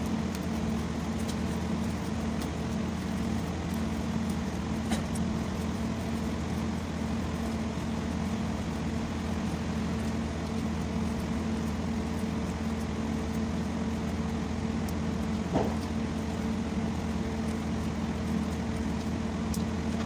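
Steady low mechanical hum from a running machine, with a few faint clicks and knocks from hands working on engine wiring and connectors, one about five seconds in and a slightly louder one about three-quarters of the way through.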